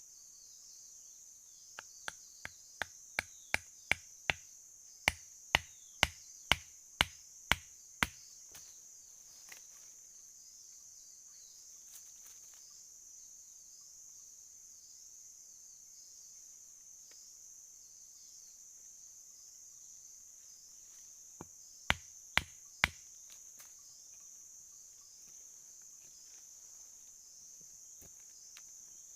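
A run of about fifteen sharp chopping knocks, about two a second and growing louder, then three more a while later, typical of a blade cutting wood or bamboo. A steady high insect chirring runs underneath.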